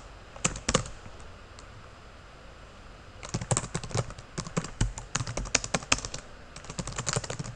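Typing on a computer keyboard: two keystrokes about half a second in, a pause of a couple of seconds, then a quick run of keystrokes with a brief break before a last burst near the end.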